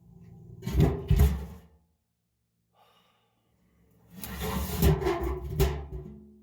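Two heavy thuds about a second in, then a longer cluster of booming bangs with a rumbling tail near the end, over a faint low steady hum.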